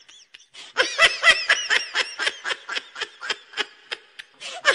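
A person laughing in a quick run of short, high-pitched bursts, beginning about a second in and trailing off near the end.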